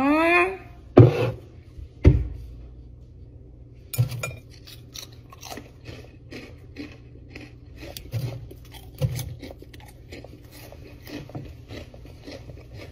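Crunchy red corn-puff snacks being bitten and chewed: quick, irregular crunching for most of the stretch. Before it, a short vocal "aww" and a heavy thump about two seconds in as the bowl is set on the counter.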